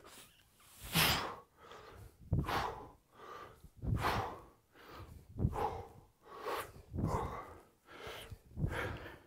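A man's sharp, forceful breaths, repeated in a steady rhythm while he swings a kettlebell.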